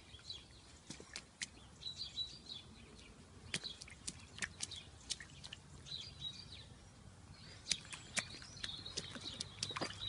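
A toddler's rubber wellington boots stepping and splashing in a shallow muddy puddle, a string of light, irregular splashes, with birds chirping now and then in the background.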